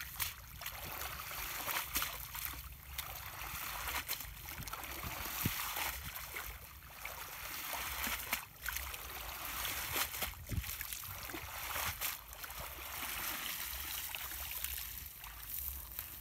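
Water splashing and streaming off a cast net as it is hauled up out of shallow pond water, with a few sharper splashes along the way.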